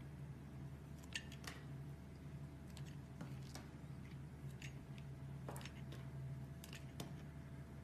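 Slime being handled: faint, irregular small clicks and pops, about a dozen spread through, over a steady low hum.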